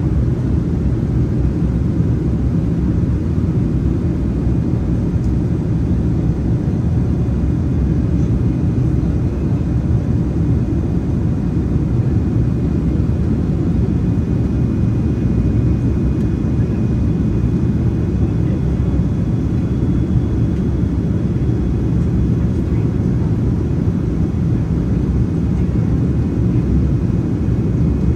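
Steady cabin noise inside a Boeing 787-9 Dreamliner in climb after take-off: a constant low rumble of engines and airflow, with a faint high steady whine above it.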